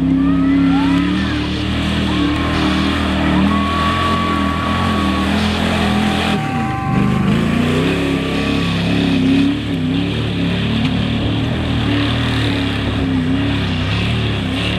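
Mud truck's engine revving hard under load, its pitch rising and falling as it churns through the mud, with a few thin whistle-like tones above it.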